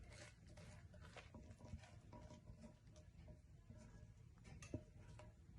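Near silence with faint scattered clicks and taps of a spoon against the pan as thick sugar-and-jaggery syrup is scraped out onto a plate; two taps are a little louder, about two seconds in and near the end.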